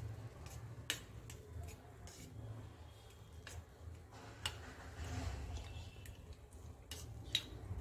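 Steel spoon clinking and scraping against a small steel bowl while milk powder is stirred into a little milk: light scattered clicks over a faint low hum.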